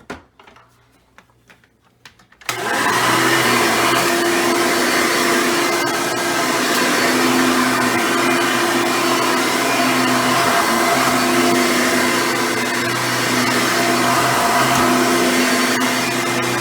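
A few clicks, then a Hoover Runabout vacuum cleaner's motor switches on about two and a half seconds in and runs steadily, with a constant hum under the airflow noise.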